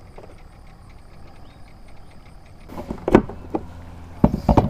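Sharp knocks and clatters of gear handled against the hard plastic deck of a sit-on-top kayak close to the microphone, a few about three seconds in and a quick cluster near the end. Before them, only a faint steady high-pitched tone.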